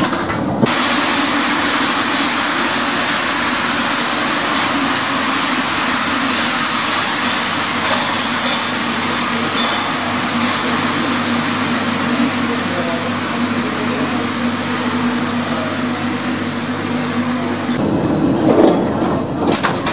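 Paris Metro MP73 rubber-tyred train running, heard from on board: a steady loud rumble and hiss with a constant low hum. The sound shifts near the end.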